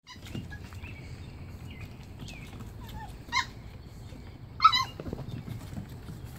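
Puppies yelping: two short, high-pitched yelps about a second apart past the middle, the second the louder, with fainter squeaks before them.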